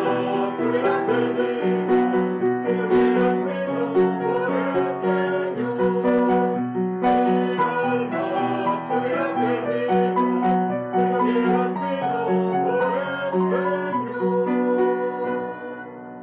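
A group of men and women singing a children's song together over instrumental accompaniment, the music fading out near the end.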